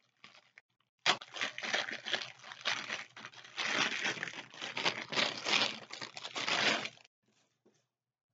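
Clear plastic bag crinkling as it is handled and a folded t-shirt is pulled out of it, starting about a second in and stopping a little before the end.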